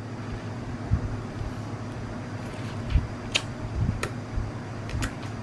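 A toddler's mouth smacking and sucking on a corn cob, a few sharp wet clicks about halfway through and near the end, over a steady low hum.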